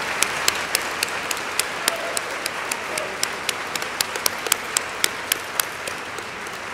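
Audience applauding, with loud, sharp hand claps about four a second from someone clapping right at the podium microphones; the applause thins out near the end.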